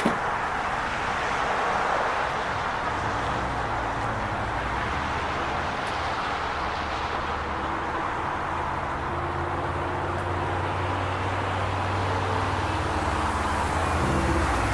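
Car being driven: steady road and tyre noise with a low engine hum that grows stronger in the second half.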